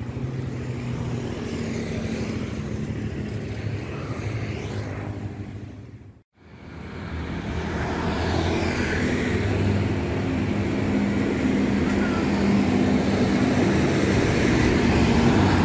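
Motor vehicle engines and road traffic, a steady low hum. It fades out to nothing about six seconds in, then comes back and grows louder toward the end.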